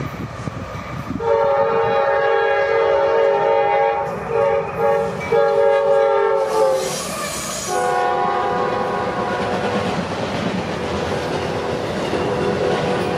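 Norfolk Southern diesel freight locomotive's multi-chime air horn sounding a long blast with a few short breaks. It comes back weaker and a little lower in pitch once the locomotive has passed, then gives way to the steady rolling clatter of double-stack container cars going by.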